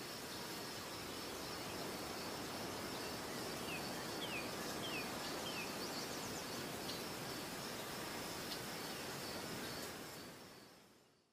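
Outdoor ambience: a steady high insect drone over soft background noise, with a few short falling bird chirps a few seconds in, fading out near the end.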